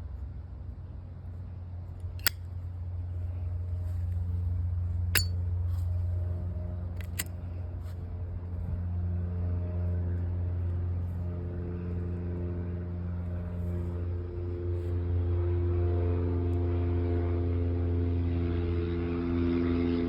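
A few sharp metallic clicks from a Zippo lighter being handled, one with a brief ring, over a steady low rumble. From about eight seconds in, a droning engine with held pitches grows louder toward the end.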